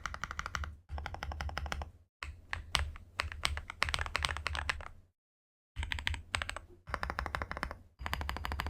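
Weikav WK68 mechanical keyboard being typed on quickly: dense runs of keystroke clacks, many per second. Several short takes are cut together, with abrupt breaks of silence, the longest about half a second in the middle.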